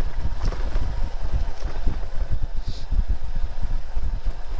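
Motorcycle engine running as the bike rides a dirt road, with heavy low wind buffeting on the microphone. There is a brief hiss about halfway through.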